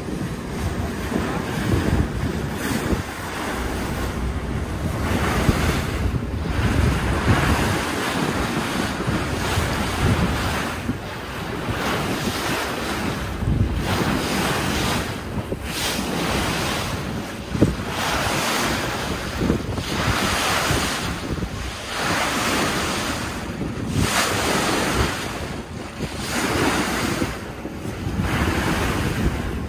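Wind buffeting the microphone in gusts over the rush of water along a moving ferry's hull.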